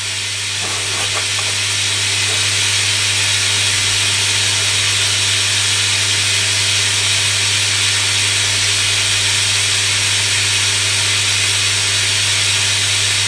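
Hoover Electronic A3172 washing machine filling with water: a steady hiss of water running in, growing slightly louder over the first couple of seconds, over a low steady hum.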